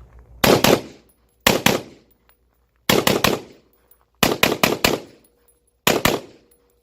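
Spikes Tactical Buccaneer AR-15 rifle firing rapid shots in five short strings of two to five shots each, every shot a sharp crack.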